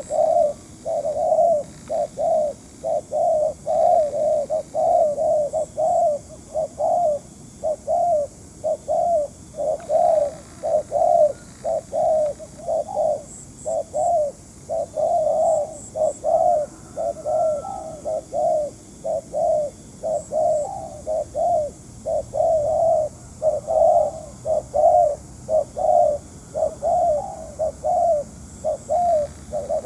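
Spotted doves cooing without pause, a steady run of low coos at about two a second.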